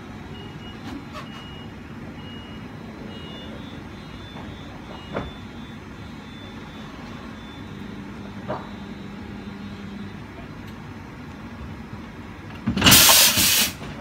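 Two coupled DB Class 425 electric multiple units standing at the platform: a steady hum with a faint high beeping tone on and off, and two short clicks. Near the end comes a loud burst of compressed air hissing for about a second.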